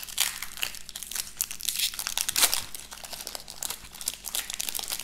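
Foil Pokémon booster-pack wrapper crinkling and tearing as it is ripped open by hand, a run of short, sharp crackles.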